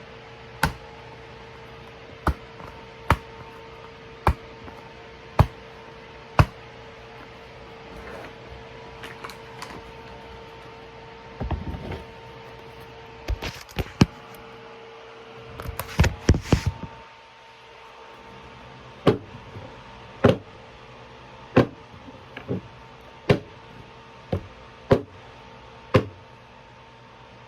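A series of sharp knocks or taps, roughly one every second or so, with two short bursts of scraping, rustling noise near the middle, over a steady hum.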